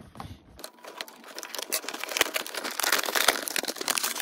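Plastic blister and cardboard of a Matchbox five-pack toy-car package being worked open by hand: a dense run of crinkling and crackling that starts about half a second in and grows louder in the second half.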